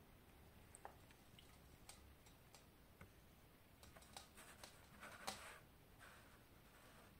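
Near silence: room tone with a few faint, scattered clicks and ticks, most of them clustered about four to five and a half seconds in.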